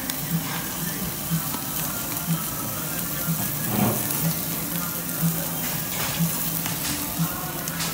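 Marinated meat sizzling on a gas yakiniku grill plate as it is turned. Under the sizzle, a low beat about once a second.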